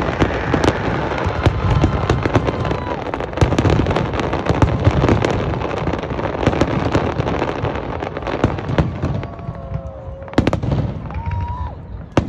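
Fireworks display with many shells going off at once: a dense, continuous run of bangs and crackling that thins out about nine seconds in, followed by one loud bang.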